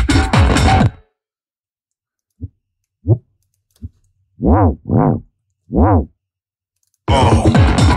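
Electronic dance track playback cuts off about a second in. Then six short synth bass notes are played one at a time on a MIDI keyboard, each bending up and back down in pitch, the last three louder and fuller. The track starts playing again about a second before the end.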